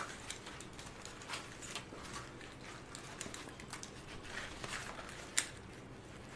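Rustling and small clicks of over-ear headphones and a cloth hat being handled as the headphones are put on, with one sharper click about five seconds in.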